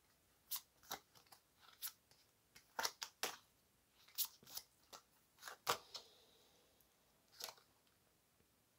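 A deck of oracle cards being shuffled by hand: an irregular run of faint, soft clicks and snaps as the cards slide and hit one another.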